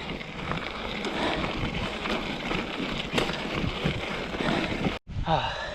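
Wind buffeting the microphone over the rumble and crunch of a mountain bike rolling along a gravel road. The sound cuts off abruptly about five seconds in.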